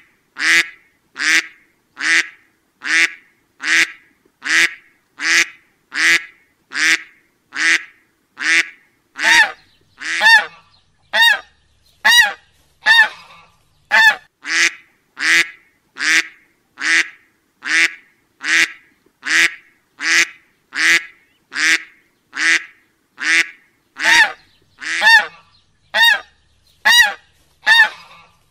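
A duck quacking over and over: short, loud calls that repeat evenly about every three-quarters of a second.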